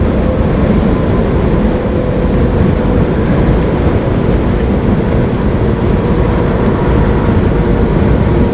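Steady engine drone and road noise inside the cab of a semi truck driving at a constant speed.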